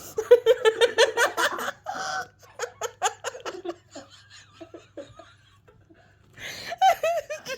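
A person laughing hard: a rapid run of laughs for the first couple of seconds, then softer chuckles that trail off, with another loud burst near the end.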